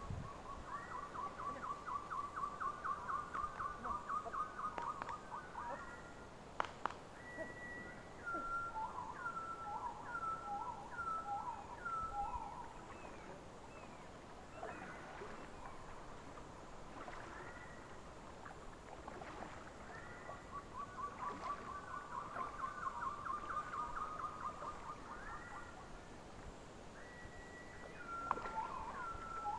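A songbird singing: a rapid trill of about five notes a second, lasting about four seconds, given near the start and again about twenty seconds later. Between the trills comes a run of about six short whistled notes, each dropping in pitch.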